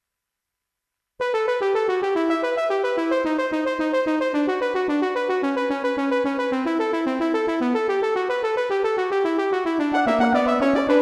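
Synthesised arrangement of a classical melody on an electric-piano-like keyboard sound, a fast run of quick notes that starts abruptly after about a second of silence. Near the end a second synth voice with gliding, wavering notes joins in.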